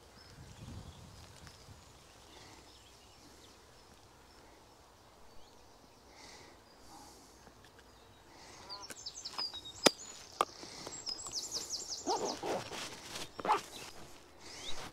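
Handling of a plastic fly box as fingers pick through the flies: faint at first, then rustling and a few sharp clicks in the second half, one much louder than the rest. Songbirds call in the background, with a quick run of high chirps.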